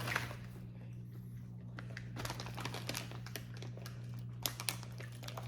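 A few soft crinkles and clicks, as of a plastic candy bag being handled, over a steady low hum.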